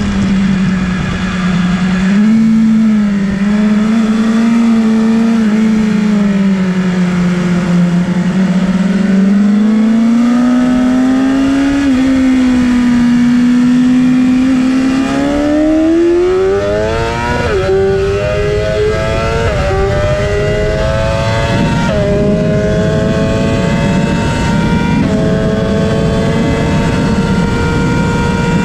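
2019 BMW S 1000 RR's inline-four engine heard from on the bike. It holds a steady, fairly low note through a long corner. From about halfway it revs up hard through the gears, with four upshifts that each drop the pitch for a moment, while wind noise builds with speed.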